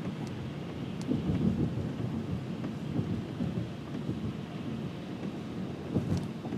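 Rolling thunder rumbling with steady rain, heard from inside a car's cabin; the rumble swells a few times.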